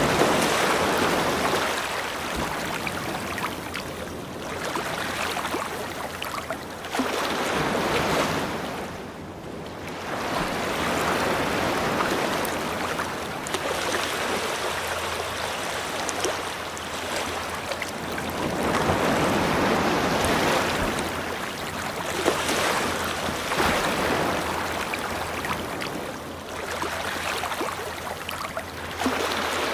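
Ocean waves breaking and washing up a beach, a continuous hiss of surf that swells and falls back every few seconds.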